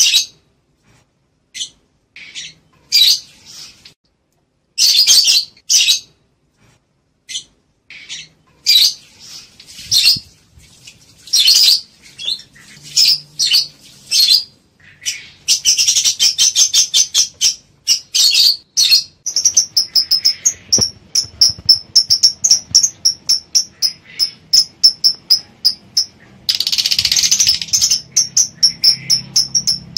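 Lovebirds calling with shrill chirps and squawks. The calls are spaced at first, then about two-thirds in they become a fast run of short chirps, three or four a second, broken by one long harsh screech near the end. These are the calls of lovebirds in breeding condition, wanting to mate.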